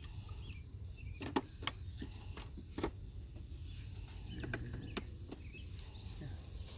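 A few light, sharp clicks and knocks of wooden beehive equipment being handled, over a low outdoor rumble with faint bird chirps.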